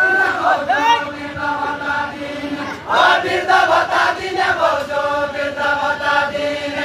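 Group of Deuda dancers singing a Deuda song together, unaccompanied, in long held phrases; a new phrase starts about three seconds in.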